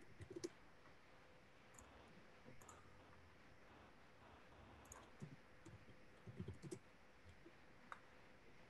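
Faint computer keyboard keystrokes and clicks, a few at a time with pauses between, over quiet room tone.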